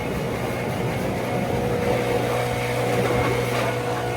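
Leaf blower running steadily at full speed, blowing dust and straw off machinery after harvest. It keeps an even pitch and cuts off abruptly at the very end.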